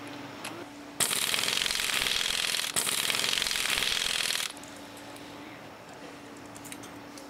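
Pneumatic impact wrench hammering for about three and a half seconds, with a brief break midway, as it drives down the flywheel rotor nut on the crankshaft of a 200cc loader-rickshaw engine.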